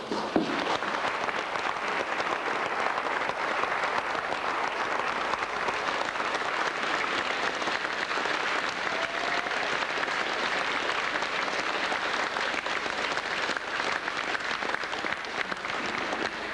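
Congregation applauding in a church: sustained, even clapping from many people.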